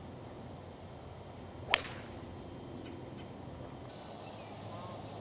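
A golf club striking the ball off the tee: one sharp, loud crack about two seconds in.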